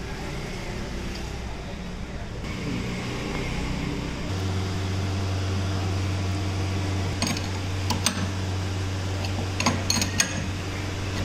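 Machine motor humming steadily, its pitch stepping up about four seconds in, with a few light metallic clinks near the end.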